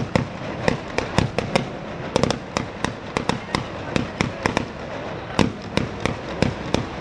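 A sparata of Ligurian mortaletti, small black-powder mortars fired in sequence: a rapid, irregular string of sharp bangs, about three or four a second, over a constant crackling noise.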